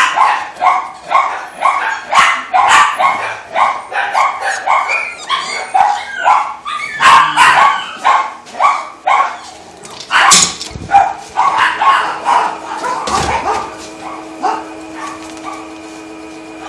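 Shelter dogs barking repeatedly, about two sharp barks a second, thinning to a few scattered barks over the last few seconds.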